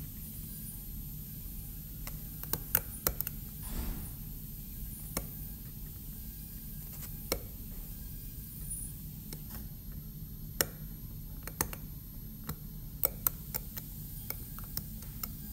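Steel dental hand cutting instrument scraping and chipping at the cavity wall of a plastic typodont molar, giving sharp irregular clicks and ticks, a quick cluster of them about two and a half seconds in, over a steady low hum.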